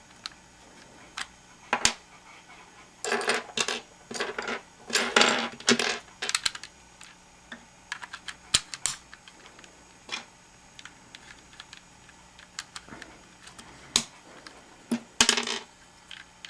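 Small plastic Gigaminx puzzle pieces clicking and clattering as they are handled, picked from a loose pile and pushed into place in the partly built puzzle. The sound comes as scattered single clicks and a handful of short bursts of rattling.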